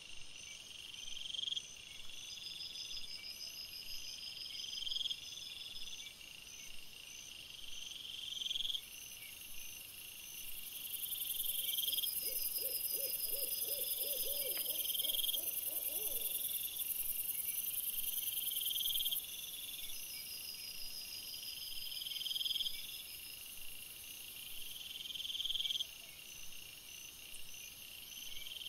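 Night-time woodland chorus of calling insects or frogs: short high notes rising in pitch, repeating about every one and a half seconds over a faster high trill, with a brief low pulsed call of about eight beats around halfway.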